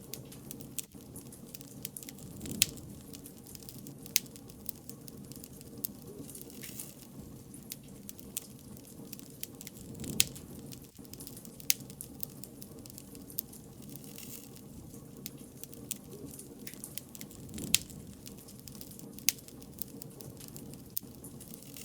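Wood fire crackling: irregular sharp pops and snaps, a few much louder than the rest, over a steady low rush of burning.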